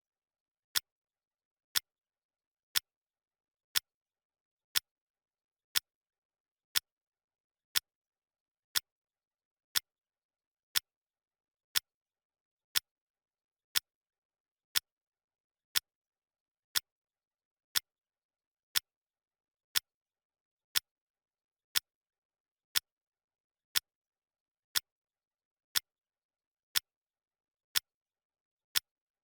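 Clock ticking sound effect: one short tick every second, evenly spaced, with nothing else between the ticks.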